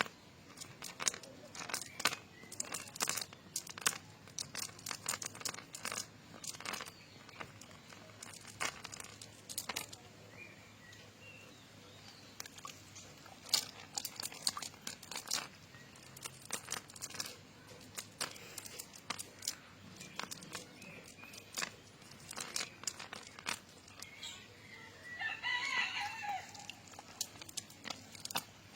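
A rooster crows once near the end, over scattered sharp clicks and crackles.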